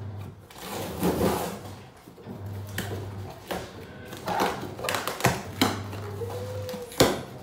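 A cardboard delivery box being opened by hand: packing tape pulled off and the flaps lifted, giving scattered rustles and scrapes with a few sharp rips or knocks, the loudest near the end.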